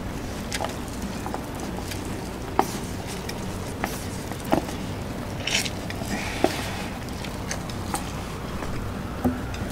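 Instant noodles being slurped and eaten fast from a paper cup, with scattered light clicks of chopsticks against the cup and a longer slurp about five and a half seconds in.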